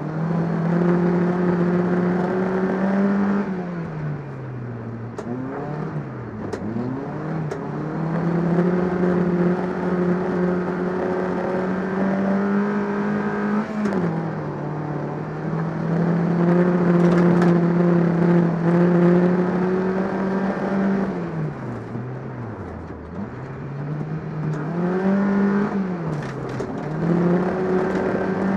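Rear-wheel-drive rock-rally car's engine heard from inside the cabin, running hard at high revs on a snowy track. The revs drop and climb again about five times as the driver lifts off and accelerates.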